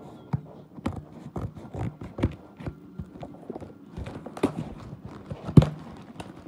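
Irregular knocks, taps and rustling from a large cardboard parcel being handled and opened by hand, the loudest knock a little before the end.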